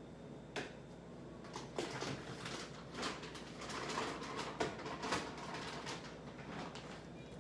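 Someone rummaging in a kitchen: a string of knocks, clicks and rustles as things are picked up and moved, busiest in the middle.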